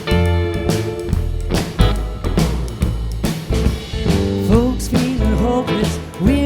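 Live band playing a country-blues rock song, with strummed guitar chords over bass and drums. About four seconds in, a lead melody line sliding up and down in pitch comes in.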